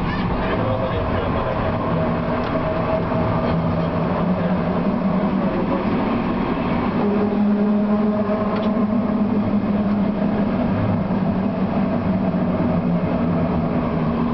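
TW6000 tram running along the line, a steady rolling rumble with a steady motor hum and a couple of faint clicks from the rails.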